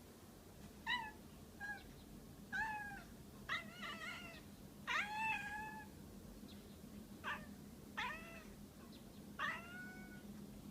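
Domestic cat making about ten short, chirping meows, each a brief call that falls in pitch, spaced roughly a second apart with a few in quick pairs. These are the weird noises a cat makes at a window when it is excited by something outside that it wants to catch.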